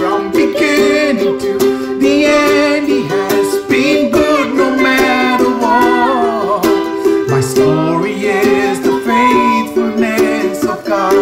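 A man and a young girl singing a worship song together over an instrumental accompaniment of held chords.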